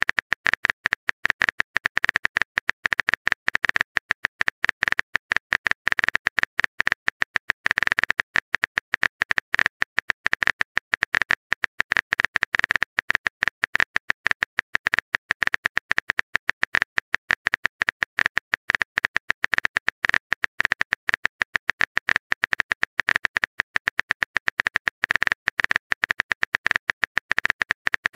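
Rapid phone-keyboard typing clicks, a sound effect with one click per typed character, running as a fast, unbroken stream of short taps.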